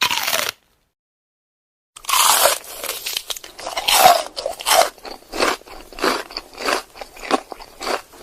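A crisp, crunchy bite into food, then about two seconds later a second loud bite followed by steady crunchy chewing, about two chews a second, growing gradually quieter.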